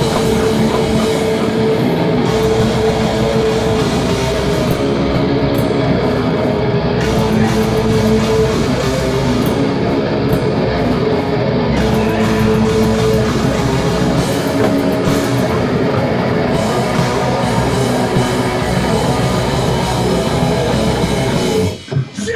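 Heavy metal band playing live: distorted electric guitar and a drum kit in a loud, dense wall of sound that stops abruptly near the end as the song finishes.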